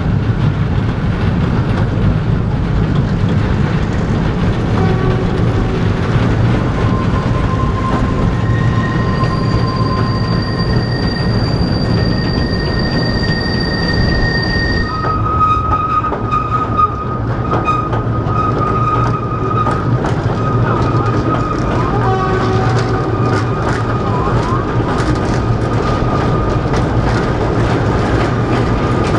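Narrow-gauge Kurobe Gorge Railway train running, heard from an open-air passenger car: a steady low rumble of wheels on the rails. High steady wheel squeal comes in about a quarter of the way through, shifts pitch around the middle and keeps sounding.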